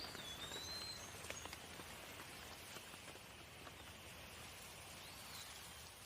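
Faint, steady light rain with scattered drips, and a bird giving short whistled calls, one at the start and another about five seconds in.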